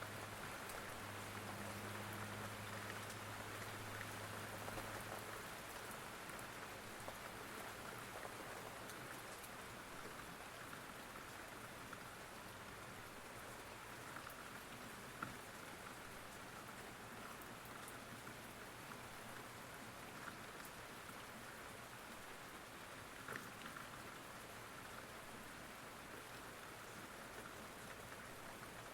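Steady rain falling, an even patter, with a few sharper single drop ticks standing out now and then.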